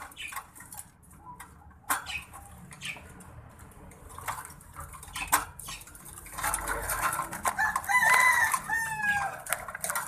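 A rooster crowing once near the end, a long call that holds its pitch and then falls. Earlier, a few sharp knocks and rattles from a wire birdcage as a bird is put into it.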